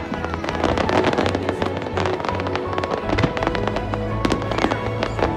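Fireworks going off in quick succession, dense bangs and crackling from aerial shells and crackling stars, over music with held notes and a steady bass.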